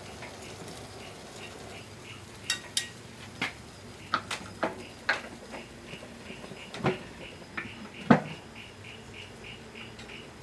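Metal barbecue tongs clicking and clacking against the grill plate and a serving plate as grilled quail are lifted off: a dozen or so sharp, scattered clacks.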